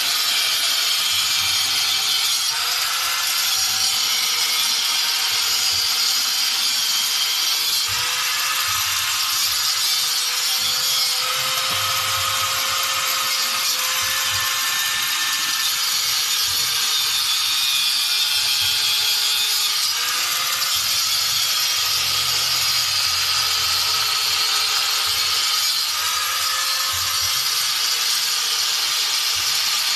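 A power tool running continuously with a steady, high whirring noise.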